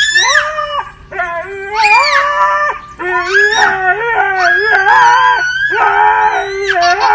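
Siberian husky howling in a series of long calls that rise and fall in pitch, with a small child's voice howling along at the same time, the two voices overlapping.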